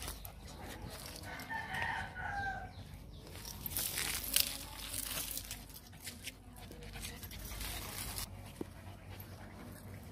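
A rooster crows once, about a second and a half in, one drawn-out call; scuffing and rustling noises follow.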